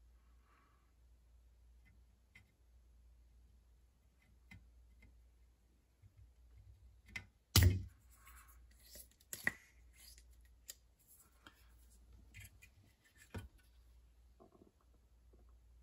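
Spring-loaded desoldering pump (solder sucker) firing once about halfway through with a sharp snap, sucking molten solder out of a through-hole in a circuit board. Smaller clicks and taps follow as the pump and iron are handled, with faint ticks and scratches around them.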